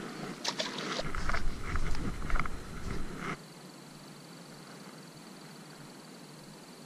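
Close rustling and several sharp knocks of handling noise against a chest-mounted camera's microphone, with a low rumble, cutting off suddenly about three seconds in. After that a faint steady high-pitched trill over quiet outdoor hiss.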